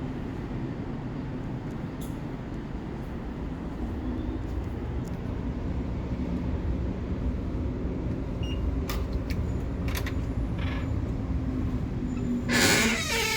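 Steady low rumble of vehicle noise, with a few faint clicks in the second half and a loud, short noisy burst near the end.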